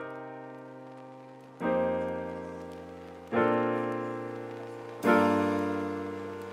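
Background piano music: sustained chords struck four times, about every second and a half, each ringing out and fading.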